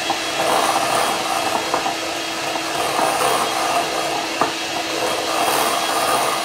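Electric hand mixer running steadily, its beaters whipping a thick cream mixture in a glass bowl, with one sharp click a little past four seconds in.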